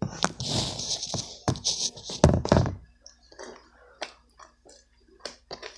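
Shaving-cream slime being squished and slapped by hand: a loud, squelching, rustling burst with thumps for about three seconds, then a few soft clicks and taps.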